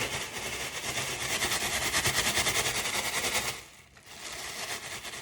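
A bag crumpled and shaken in the hands with a dense, rapid crinkling crackle, made to imitate wind blowing. It pauses briefly a little before four seconds in, then starts again.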